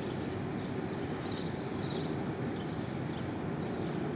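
Steady rumble of passing road traffic.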